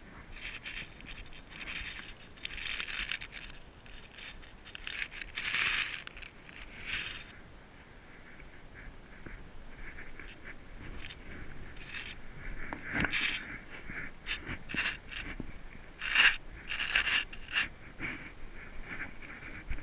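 Boots scuffing and scraping on bare granite on a steep downhill walk: a few longer scrapes at first, then a run of quick, sharp steps in the second half.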